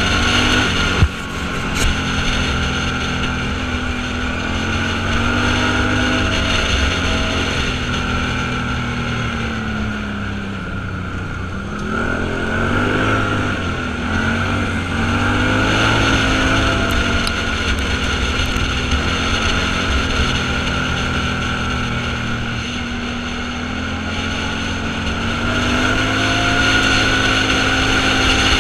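Off-road vehicle engine running while driving, its pitch slowly rising and falling with the revs over steady road and wind noise, with a sharp knock about a second in.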